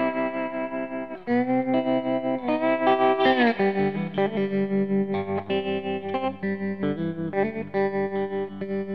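Solo guitar music played through effects: long held notes that bend in pitch, then quicker repeated picked notes from about four seconds in.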